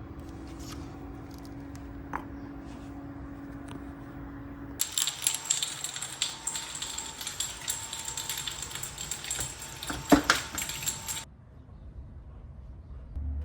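Rattling and clinking of small hard objects. It starts abruptly about five seconds in and stops abruptly about six seconds later, with one sharp knock just before the end. A steady low hum runs before it.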